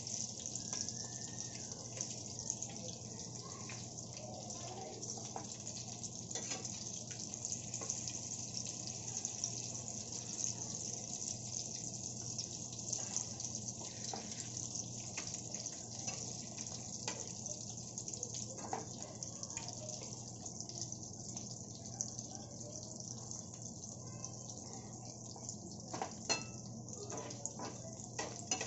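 Halved boiled eggs sizzling in hot oil in a nonstick frying pan, a steady hiss. A steel spatula turning them scrapes and taps against the pan now and then, with a cluster of taps near the end.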